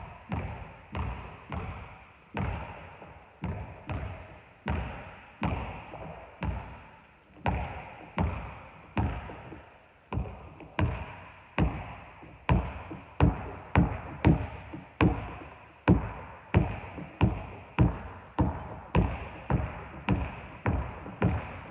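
Basketball dribbled on a wooden gym floor: steady bounces about two a second, each echoing in the large hall.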